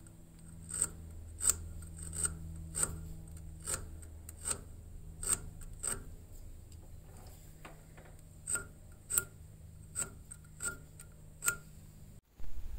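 Light, sharp clicks at about one and a half a second, in two runs with a short pause between them, from a cue shaft being handled and turned by hand in a metal lathe's four-jaw chuck. A low steady hum runs under them.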